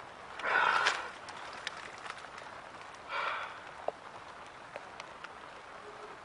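Two breathy sighs from a man, one about half a second in and a weaker one about three seconds in, with faint small clicks and rustles between.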